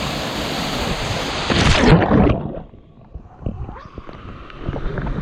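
Steady roar of a waterfall pouring into a pool, then a louder splash about two seconds in. After it the sound drops suddenly and turns muffled and dull, with scattered small knocks.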